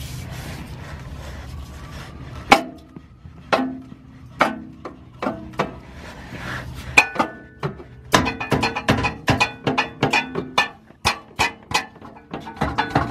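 Metal exhaust pipe knocking and clinking as it is worked into place, several knocks leaving a short metallic ring. A steady low hum stops about two and a half seconds in, just before the knocking starts.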